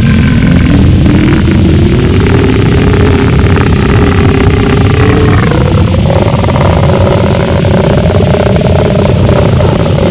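Gorenoise harsh noise music: a loud, dense wall of distorted, clipped low-end noise. A wavering pitched drone rides over it and climbs in steps, once just after the start and again about two-thirds of the way through.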